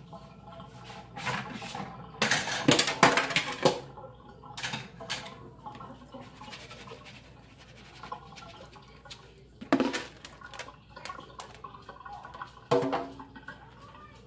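Watermelon seeds handled in a metal mesh strainer over a stainless steel sink: a stretch of water and clattering during the first four seconds, then two sharp knocks about three seconds apart as the strainer is knocked against a plate to empty out the seeds.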